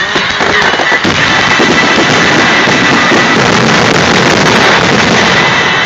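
Aerial firework shells bursting in a dense finale barrage, the overlapping bangs and crackle merging into one continuous loud wash of noise.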